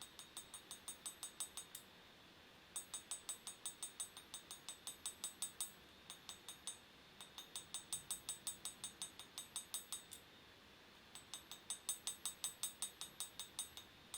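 Rapid light hammer blows on a bar over a blacksmith's anvil, about six strikes a second in runs of two to four seconds with short pauses between, each blow giving a high metallic ring. The blows draw round bar down to square section, working each face in turn.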